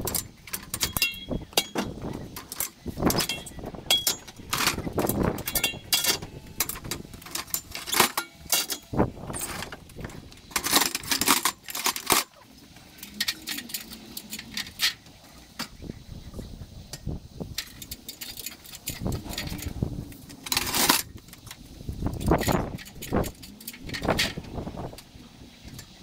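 Scaffold parts being handled and set up: irregular clanks, knocks and rattles, some with a brief metallic ring. There is a quieter spell in the middle.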